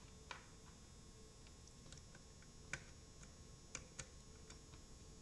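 Faint, scattered plastic clicks and taps, about half a dozen over a few seconds, from handling a computer keyboard and pushing its USB plug toward a port.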